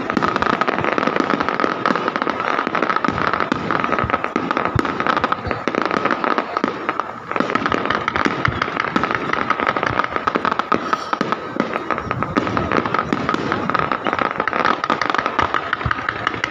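Fireworks display: a dense, continuous barrage of bangs and crackling, with a steady high tone running through it.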